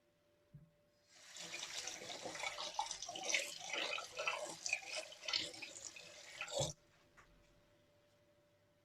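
Water running from a tap and splashing into a sink for about five and a half seconds, then cut off abruptly with a low knock.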